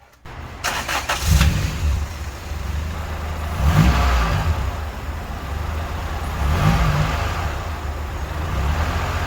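Honda B16A DOHC VTEC inline-four cranks for about a second, catches and runs, with the revs rising twice, about four and seven seconds in. It is the engine finally starting after a crank-no-start problem.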